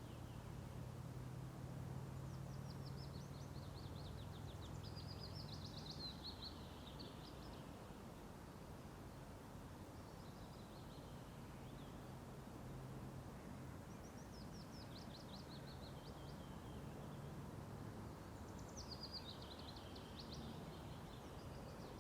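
A songbird singing a short phrase of rapid notes that fall in pitch and end in a flourish, repeated four times, over a faint low steady hum.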